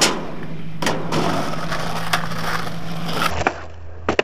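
Skateboard wheels rolling on a concrete slab, with a few clicks as they cross cracks, then a sharp wooden clack of the board near the end as the skater does a kickflip.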